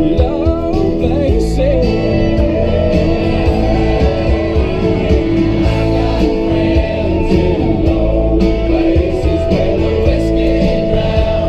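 Country song playing, with guitar and some singing, continuing steadily.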